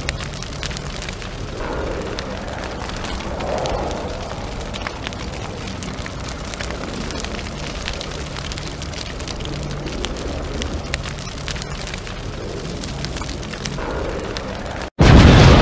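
Steady crackling, rumbling noise bed with a faint low hum that comes and goes. Near the end it drops out for an instant, and a much louder rumbling noise cuts in suddenly.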